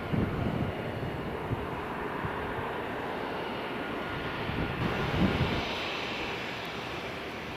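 Business-jet turbofan engines running with a steady rushing jet noise and a faint whine. Low buffets of wind on the microphone come just after the start and again about five seconds in.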